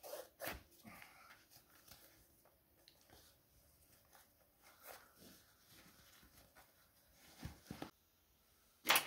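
Hiking boot laces being pulled through the eyelets and tied, with rustling and soft knocks, and a dog whimpering now and then. There is a louder knock near the end.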